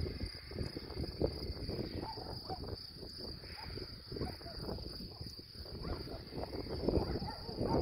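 Wind gusting against the microphone in uneven low rumbles, over a steady high-pitched trill of insects in the grass.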